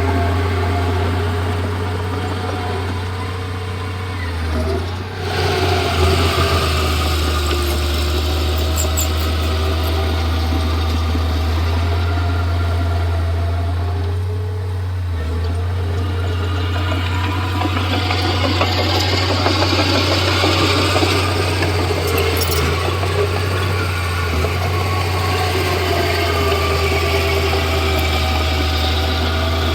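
Komatsu D31P bulldozer's diesel engine running under working load, a steady low drone whose pitch rises and falls as the load changes, with brief dips about five and fifteen seconds in.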